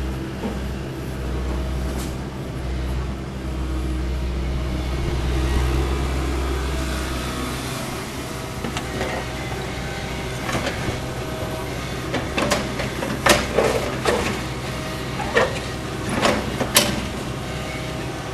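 An engine running with a steady low rumble that cuts off about eight seconds in, followed by scattered sharp knocks and clicks.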